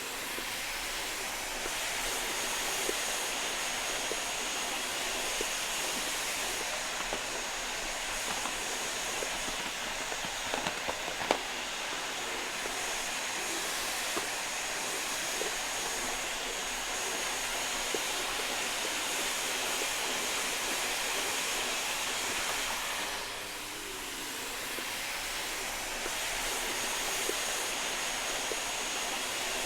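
Vacuum cleaner running steadily: a loud rushing noise with a thin high whine on top. A sharp click about eleven seconds in, and the sound dips briefly and comes back about three-quarters of the way through.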